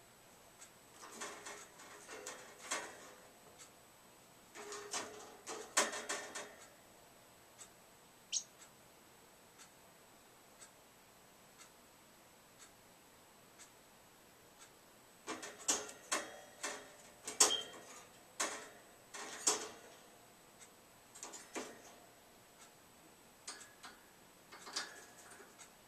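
Parrotlet clambering on the wire cage bars with its feet and beak, making clusters of clicks and metal rattles in several bouts. It avoids perching and hangs on the cage sides for support. A faint steady tick about once a second runs underneath.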